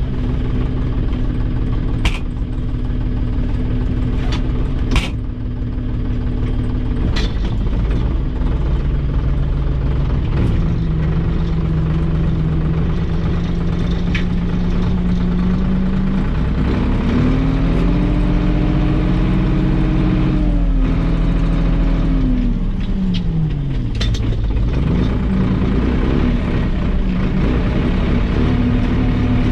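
Valmet 602 tractor engine running steadily, its speed rising about halfway through, holding, then dropping back down a few seconds later. A few sharp knocks ring out now and then over the engine.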